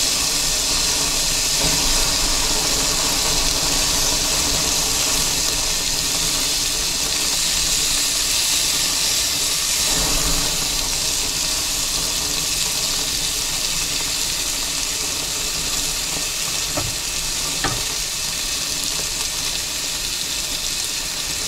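Bacon and hot dogs sizzling on a portable grill: a steady hiss of frying fat. A few light taps of metal tongs on the grate come in the second half.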